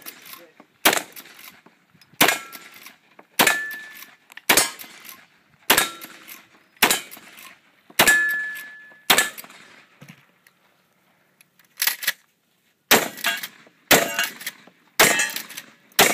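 A long gun fired in a steady string of shots, about one a second, with a pause of about two seconds before the last five. Several shots are followed by a short metallic ring as steel targets are hit.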